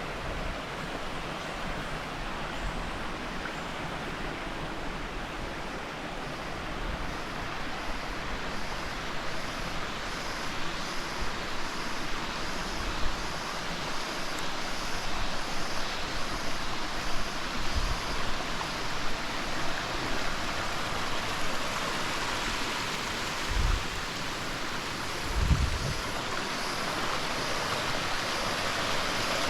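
Waterfall water rushing over rocks, a steady hiss that grows a little louder towards the end, with a few brief low thumps in the second half.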